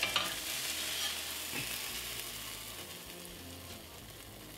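Butter sizzling and frying under a grilled cheese sandwich in a hot stainless-steel pan, slowly fading, with a couple of short clicks of a metal spatula against the pan at the start.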